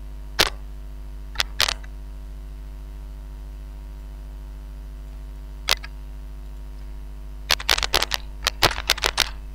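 Computer keyboard keystrokes clicking: a few single clicks in the first two seconds and one more about halfway, then a quick run of keystrokes in the last two seconds. A steady electrical mains hum runs underneath.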